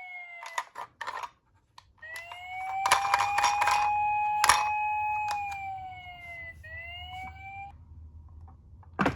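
Toy police car's electronic siren: a wailing tone that falls and cuts off, then after a pause rises, holds and slowly falls again, with a short rising wail near the end. Clicks and rattles of the toy being handled come between the wails.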